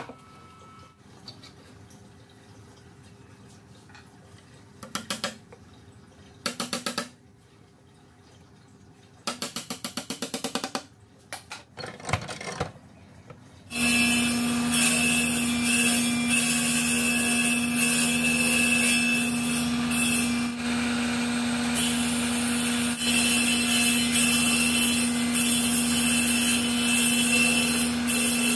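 Scattered knocks and a quick run of taps, then, about halfway through, a table saw starts and runs steadily with a constant whine and a loud hiss. It is cutting into a wooden block that is turned by hand over the blade to hollow out a round basin.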